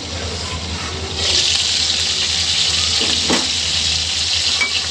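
Chicken pieces sizzling in hot mustard oil on high heat, the juices from the meat bubbling in the pan. The sizzle jumps much louder about a second in as the glass lid comes off, and there is a light knock a couple of seconds later.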